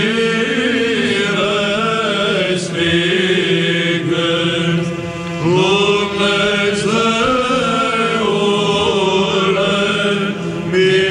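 Byzantine chant: a voice sings a slow, ornamented melody over a steady low drone held beneath it.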